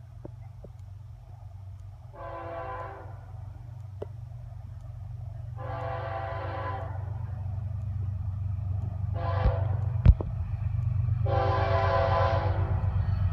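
Approaching Florida East Coast Railway GE ES44C4 diesel locomotive sounding its horn for a grade crossing: two long blasts, a short one and a final long one. Under the horn a low engine rumble grows steadily louder as the train draws near, and a single sharp click comes about ten seconds in.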